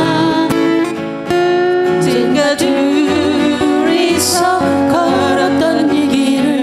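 Acoustic guitar playing a ballad, with a voice singing long, wavering notes over it.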